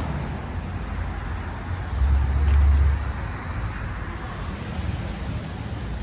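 Road traffic going by, a steady rumble with tyre noise. A heavier low rumble swells for about a second, two seconds in.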